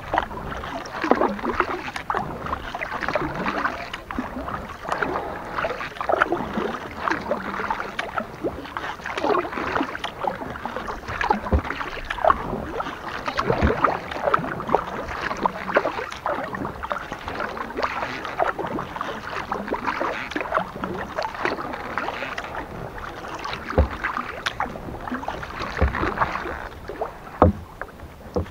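Kayak paddle blades dipping and pulling through calm water, with continuous splashing and dripping from the blades.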